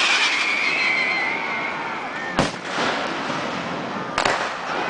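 Aerial fireworks: a high whistle that slowly falls in pitch for about two seconds, then two sharp bangs of shells bursting, about two seconds apart, each trailing off in an echo.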